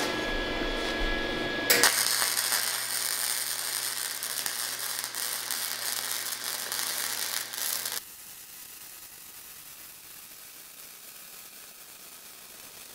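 Flux-core wire-feed welding arc from a Lincoln MIG Pak 140 run on straight polarity (electrode negative): it strikes about two seconds in and crackles steadily over the welder's low hum, running more quietly from about eight seconds in.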